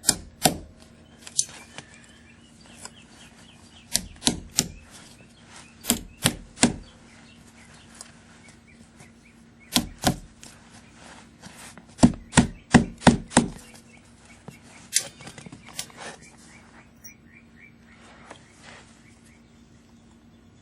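Hammer driving nails through a metal support clip into a wooden futon leg. Sharp strikes come in short runs of two to four, with pauses of a few seconds between them. The longest run comes about twelve seconds in.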